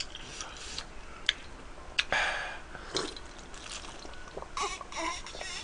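A man drinking a cold milky drink from a tall glass, with sipping and swallowing sounds and two sharp clicks about one and two seconds in.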